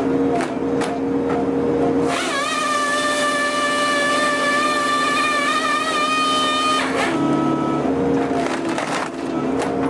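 Excavator-mounted firewood processor head at work, its engine and hydraulics running steadily. About two seconds in, the head's saw bites into a log with a high whine and hiss for about five seconds, then stops; a few wood knocks and cracks come before and after the cut.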